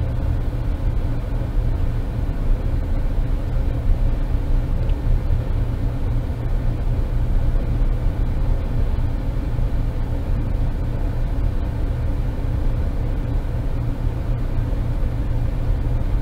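Steady low rumble of running machinery, unchanging throughout, with a constant hum over it.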